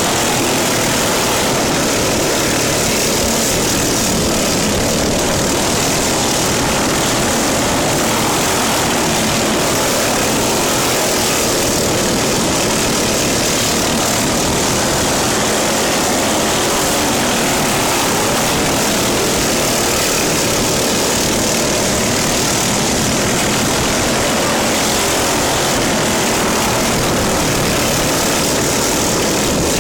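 Lawn mower engine running steadily at full throttle, a loud, unbroken drone.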